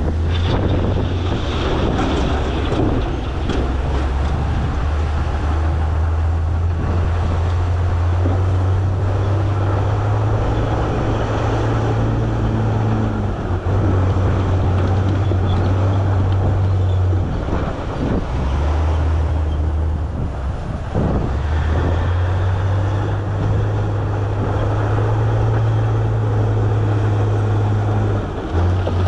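Heavy earthmoving machine's diesel engine working under load, its low drone stepping up and down in pitch several times as the load changes, with grinding noise and a few knocks over it.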